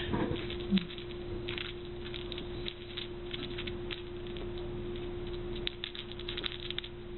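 Soft rustling and light scuffing of a cloth sock puppet being waggled right in front of the microphone, in scattered small bursts, over a steady faint hum.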